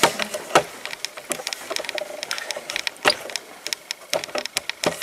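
Irregular clicks and knocks of people moving about among debris and stacked plastic crates, with a sharper knock about half a second in and another about three seconds in.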